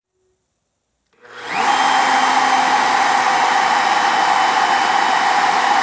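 Bosch 1617EVS router switched on, its motor spinning up in about half a second and then running steadily at speed. It powers up from its repaired power switch.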